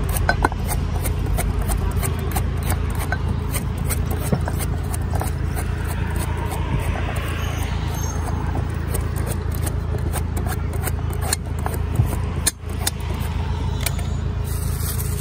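A hooked metal blade scraping and shaving a coconut's husk in quick, repeated strokes, over a steady low rumble.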